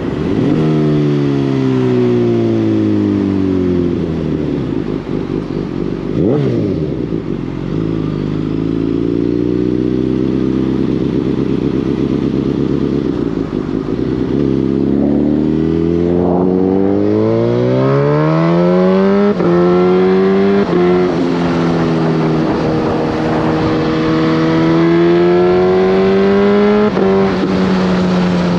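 Suzuki GSX-S1000's inline-four engine and exhaust under way. The note falls as the bike slows, picks up and holds, then climbs through the revs, with three quick upshifts in the second half where the pitch drops and climbs again.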